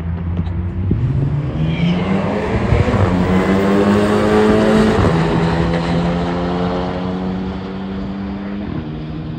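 Cars at full throttle in a drag race, engines rising in pitch as they accelerate, plausibly the Audi S3 and Cadillac CTS-V just called. The engines are loudest about five seconds in, where the pitch drops as the cars go past, and then the sound eases off.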